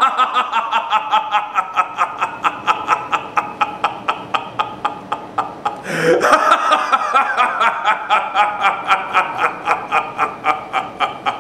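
A person laughing hard in a long fit of rhythmic, breathy giggles, about five pulses a second. The laugh breaks for a breath about six seconds in and then carries on.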